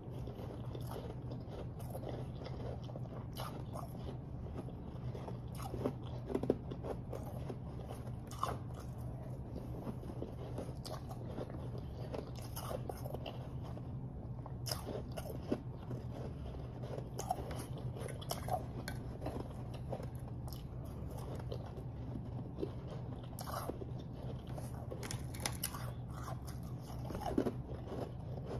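Refrozen powdery snow ice being bitten and chewed right at a clip-on microphone: irregular crisp crunches throughout, with a few louder bites, over a steady low hum.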